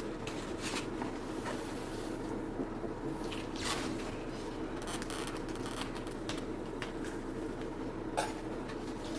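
Scattered light clicks, scrapes and a brief rustle of packaging being handled as sticky tape on a speaker's wrapping is worked loose, over a steady low hum.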